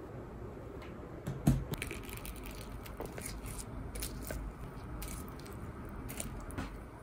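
Flaky puff-pastry crust over a bowl of soup crackling and crunching as a metal spoon breaks through it, with one louder knock about a second and a half in.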